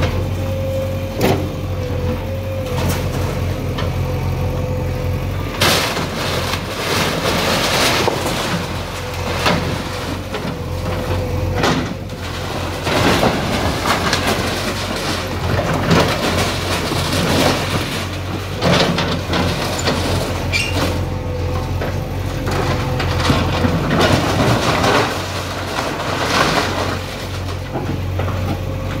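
Heavy diesel earthmover engine running steadily with a held whine. From about six seconds in there are repeated loud stretches of crunching and scraping as structures are broken down.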